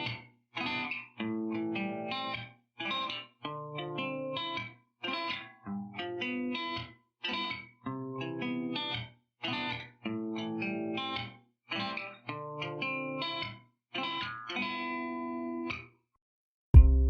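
Background music: an electric guitar with effects playing chords in a steady, choppy rhythm, stopping about a second before the end. Then a sudden loud thump sounds.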